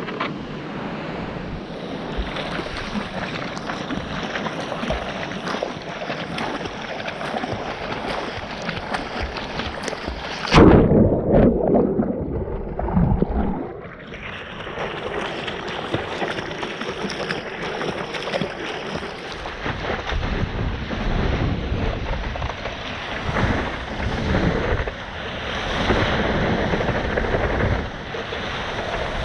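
Ocean surf rushing and washing, with wind on the microphone. About ten seconds in, a sudden loud, muffled surge cuts off the high end for about three seconds before the open rush of the waves returns.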